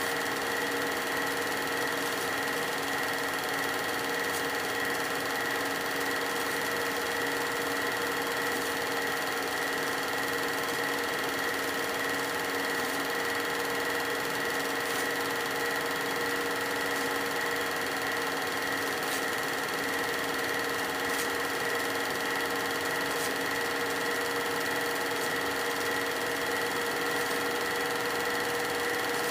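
Steady mechanical whir and hum of a film projector running, with no change in pitch or level.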